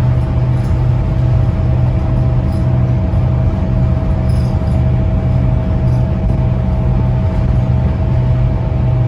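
Scania K270UB bus's five-cylinder diesel engine running steadily under way, heard inside the passenger saloon as a loud, even low drone with a constant whine above it and road noise from the tyres.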